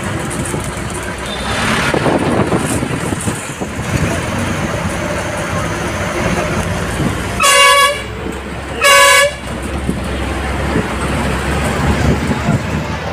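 Bus horn sounding two short blasts about a second apart, over the steady engine and road noise of the moving bus heard from inside.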